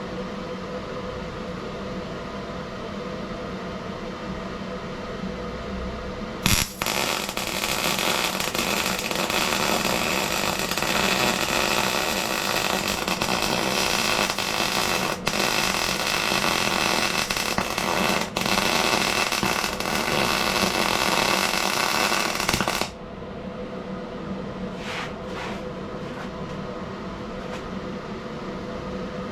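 MIG welder laying one continuous bead, its arc crackling steadily for about sixteen seconds with two brief breaks. It starts about six seconds in and stops sharply. A steady hum runs underneath throughout.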